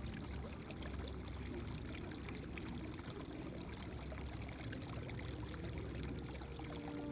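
Steady rushing and gurgling of flowing water, with a low rumble underneath.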